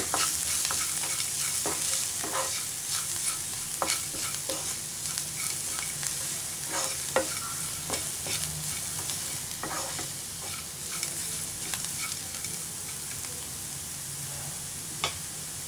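Wooden spatula stirring and scraping a spiced onion-and-lentil mixture around a non-stick frying pan, with the oil sizzling in a steady hiss underneath. The scrapes and taps come irregularly and thin out near the end.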